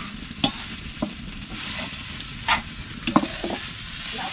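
Metal spoon stirring grated young coconut in a metal pan over a wood fire, scraping and clinking against the pan a few times at irregular intervals, over a steady sizzle. This is the cooking of bukayo (Filipino coconut candy), before the sugar is added.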